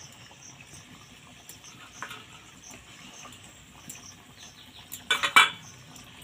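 A quick cluster of sharp clinks about five seconds in, with a smaller click around two seconds: a spoon knocking against a glass jar of ghee as it is opened and scooped from.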